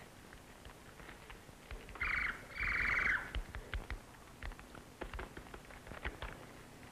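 Two short buzzy calls with a rapid flutter, one right after the other about two to three seconds in, taken for a bird. Behind them, a campfire crackles with scattered sharp pops.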